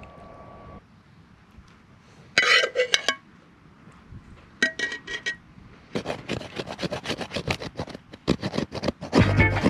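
A metal utensil clinks and scrapes against a cooking pan as penne in Alfredo sauce is served onto a plate: two short bouts of clinking, then a quick run of scrapes. A faint steady hum cuts off about a second in, and music starts just before the end.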